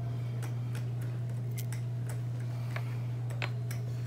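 Scattered small clicks and light rustles from gloved hands handling a paper towel and a small plastic vial, over a steady low hum that is the loudest sound throughout.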